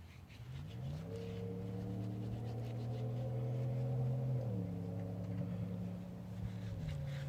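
An engine running with a steady hum that rises in pitch about half a second in, holds, then drops a step twice, with faint rubbing and scrubbing sounds alongside.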